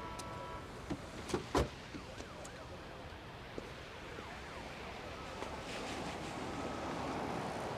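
City street traffic at night with a siren wailing in the background, its pitch rising and falling. A few sharp knocks come about one to one and a half seconds in.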